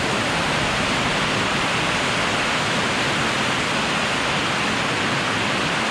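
Heavy rain falling steadily on a truck: an even, loud hiss with no let-up.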